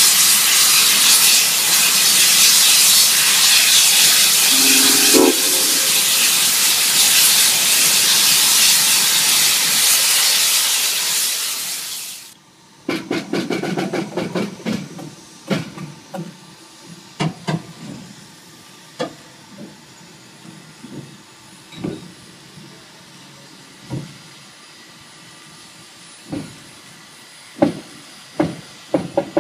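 Santa Fe 3751 steam locomotive venting steam in a loud, steady hiss that cuts off suddenly about twelve seconds in. After that come irregular clanks and clicks as the locomotive is turned on the turntable.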